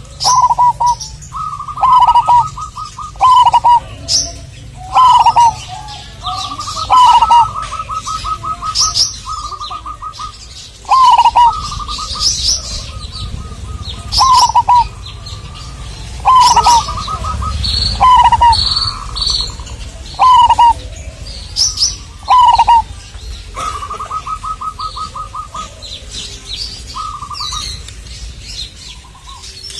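Zebra dove (perkutut) cooing over and over in short phrases, each ending in a rapid run of staccato notes, with another small bird chirping higher in between.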